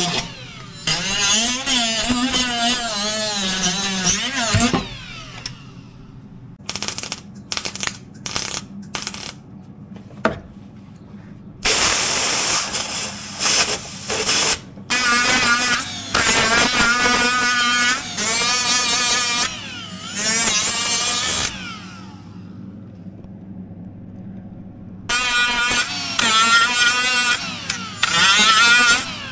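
MIG welding and a power tool on the steel floor pan and rear wheel arch of a BMW E30, welding up the holes left by the roll-cage mounts. It comes as a string of short bursts and longer runs of a few seconds each, some with a wavering whine, stopping and starting throughout.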